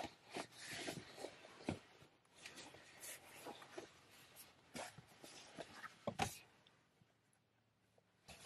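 Soft rustling of a cloth tote bag and light knocks as a laptop is taken out of it, a string of quiet, irregular handling sounds inside a car's cabin. The handling stops for a second or two near the end.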